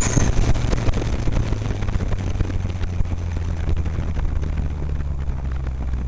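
Off-road race vehicle's engine heard from inside the cab. It eases off after about a second into a steady low drone, with knocks and rattles over rough ground.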